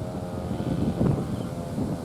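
Wind buffeting the microphone: a low rumble with gusts that swell about a second in and again near the end.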